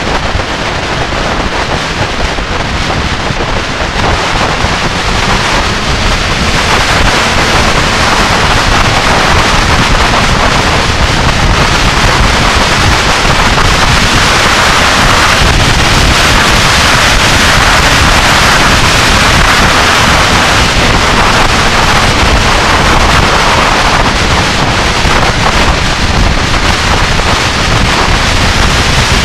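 Loud wind noise on the microphone of a 1999 Yamaha YZF-R6 sport bike riding at road speed, a steady rushing that gets a little louder about six seconds in.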